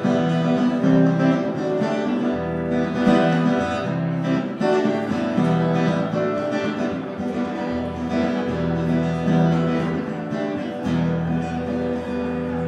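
Acoustic guitar strummed, chords changing every second or two: the instrumental intro of a song, before the singing comes in.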